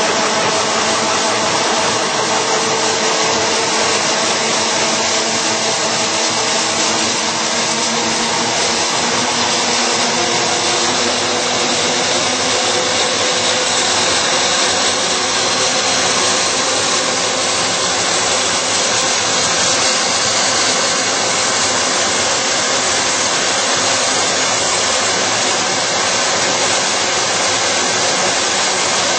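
Dahlstrom coil slitting line running, steel strip feeding through the slitter knives and over the roller tables: a loud, steady machine noise with a faint hum.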